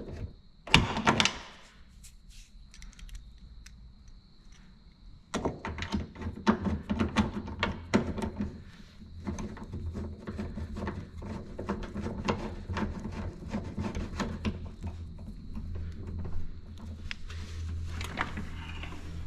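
Irregular metallic clicks, taps and scraping of a wrench and fingers threading and turning the door handle's 10 mm mounting bolts inside a car door. The work is quieter for a few seconds and then picks up with dense clicking about five seconds in.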